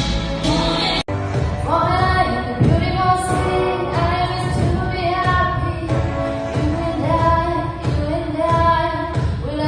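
A voice singing a melody over a backing track, with a momentary dropout in the sound about a second in.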